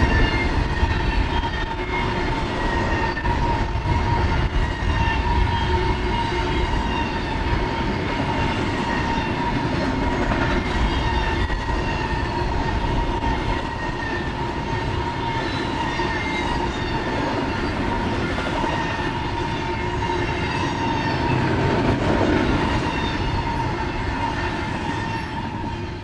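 Double-stack intermodal freight train's container well cars rolling past: steady wheel-on-rail rumble with a steady high ringing tone from the wheels, fading out near the end.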